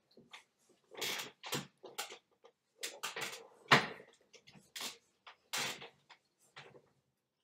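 Close-up wet mouth noises of a sandwich being chewed: irregular smacks, clicks and squelches, about two a second, stopping just before the end.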